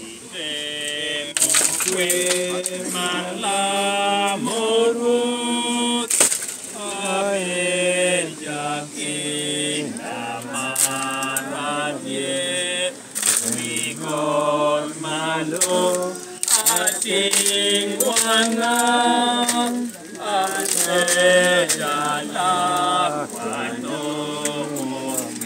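A group of mourners singing a hymn unaccompanied, in held notes that move step by step, with a few sharp clatters over the singing.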